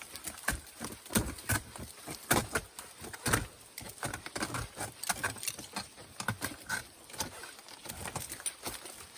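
Ice axes and crampons striking and kicking into frozen waterfall ice: irregular sharp knocks and chips, several a second, with a few harder strikes in the first half.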